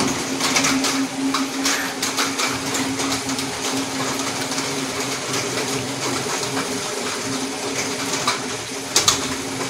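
Water boiling in a steel saucepan on a gas stove: a steady bubbling hiss with scattered small pops, over a steady low hum. A sharp click near the end.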